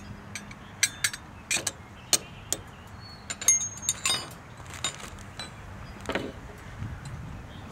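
Stainless steel camp cookware being handled: scattered light metallic clicks and taps, a few with a short ringing tone.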